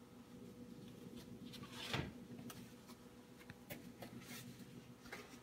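Faint paper rustling and light handling clicks as a new paper fridge coaster liner is unwrapped, with one louder swish about two seconds in, over a faint steady hum.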